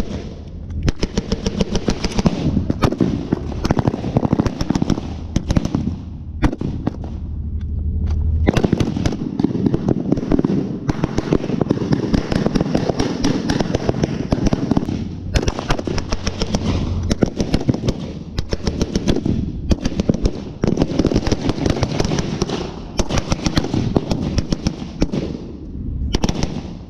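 Blank gunfire in a mock battle: rapid bursts of automatic fire mixed with single shots, going on almost without a break, with a few short lulls.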